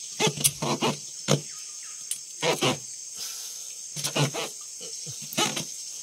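Insects shrilling steadily, with a handful of short rasping bursts, some in quick pairs, as a fish is handled in a mesh landing net.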